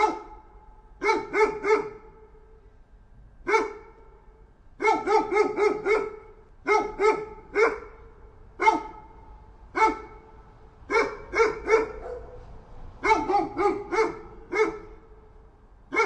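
A dog barking over and over, in quick runs of up to five or six sharp barks, with single barks between and pauses of about a second.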